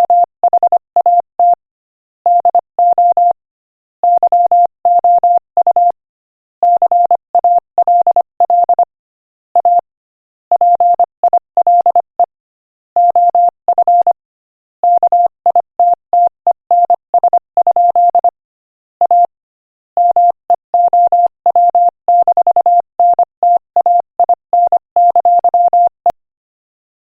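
Morse code at 25 words per minute: a single steady beep keyed on and off in quick short and long pulses, grouped into letters and words with brief pauses between. It stops about a second before the end.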